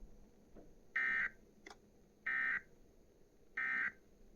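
Emergency Alert System end-of-message data bursts: three short, identical buzzing bursts of digital tones about 1.3 seconds apart, signalling the end of the alert.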